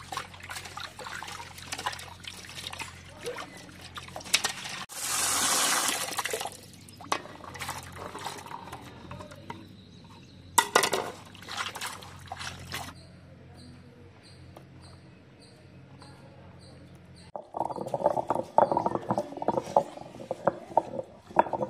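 Hands splashing and rubbing food in a metal bowl of water, with two louder pours or splashes about 5 and 11 seconds in and a low steady hum underneath. From about 17 seconds in, a wooden pestle pounds repeatedly into a stone mortar, crushing garlic.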